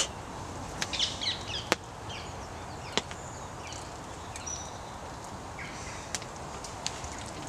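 Campfire with a few sharp, isolated cracks a second or more apart over a steady hiss, and small birds chirping in the background.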